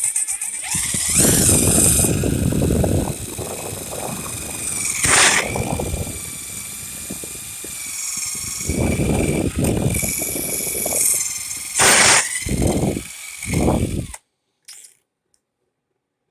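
Power drill running in repeated bursts with a high motor whine, cutting off abruptly near the end.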